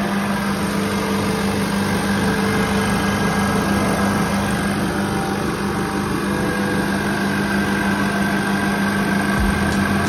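Refrigerant recovery machine running with a steady hum, its compressor pumping the refrigerant out of the air conditioner into a recovery cylinder.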